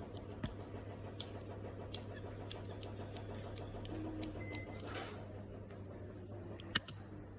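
Scissors snipping: a series of irregular sharp clicks of the blades closing, with the loudest snip near the end, over a steady low hum.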